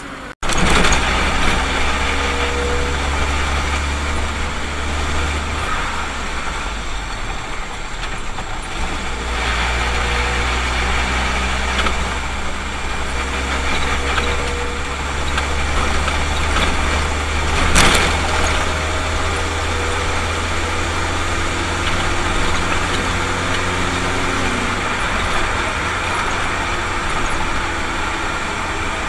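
Car engine and road noise heard from inside a moving car's cabin: a steady low rumble, with the engine's pitch rising and falling as the car changes speed. A single brief sharp knock comes a little past halfway through.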